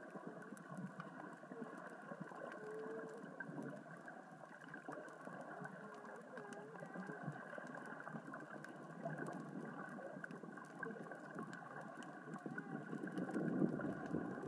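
Underwater ambience on a rocky reef: a steady crackling and rumbling from small rocks rolling across the sea floor as the current and tide move them. A few short wavering tones come through, and the sound swells near the end.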